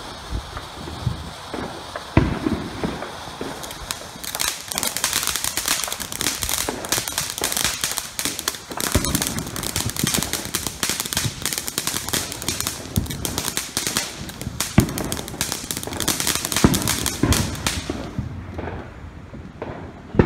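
Ground fountain firework spraying sparks: a steady hiss with dense, rapid crackling and a few sharper cracks, dying away shortly before the end.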